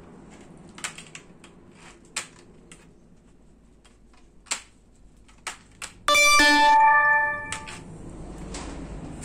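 Tin snips cutting the wire grill mesh of a disposable instant grill, a few sharp clicks as the blades snap through the wire strands. About six seconds in, a loud steady pitched tone sounds for about a second and a half and stops suddenly.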